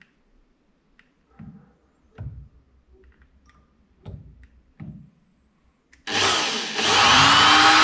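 A few light knocks as a corded electric drill is set against an aluminium bar. About six seconds in, the drill starts and runs steadily, boring into the metal, its pitch rising briefly as it comes up to speed.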